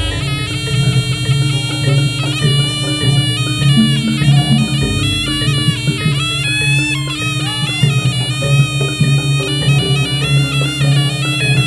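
Jaranan gamelan music: a shrill double-reed trumpet (slompret) playing a wavering, ornamented melody over drums and a steady low drone.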